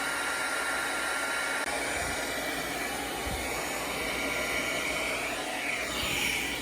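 Happy Wings hair dryer brush running steadily on its middle setting, a lower-speed, medium-heat setting, with a constant rush of blown air.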